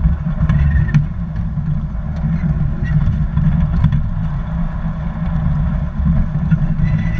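Steady low rumble of a garden-railway train rolling along its track, heard from a camera riding on the car behind the locomotive, with a few light clicks from the wheels and track.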